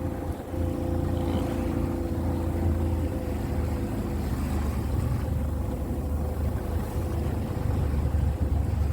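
A motor on a small fishing boat running steadily at low revs, a low, even hum.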